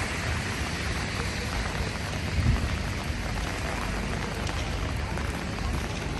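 Steady hiss of rain falling on a city street, with a low rumble underneath and a brief low thump about two and a half seconds in.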